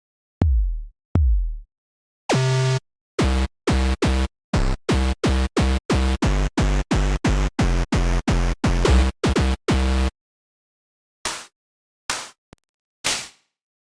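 Synthesized drum sounds from the Integrate virtual analog synthesizer, played as separate single hits. Two deep kick-drum hits come first, then a quick run of short pitched drum notes, about three a second. A few noisy snare- or hat-like hits follow near the end.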